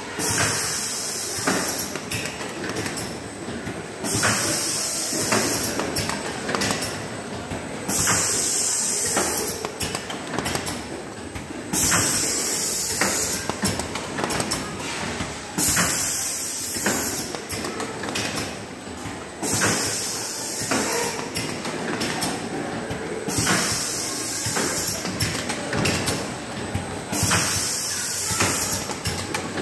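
Automatic carton packaging machine running with a steady mechanical clatter. About every four seconds a burst of pneumatic air hiss lasts a little over a second.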